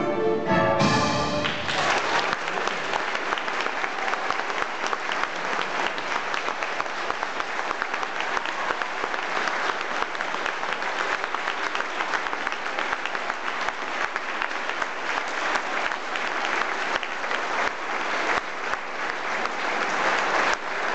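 A school orchestra of clarinets, flutes, saxophone and violins ends its piece on a final chord that stops about a second in, and the audience then breaks into steady applause.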